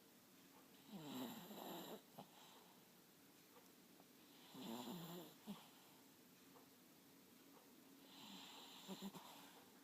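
A sleeping dog snoring: three snores, about three and a half seconds apart.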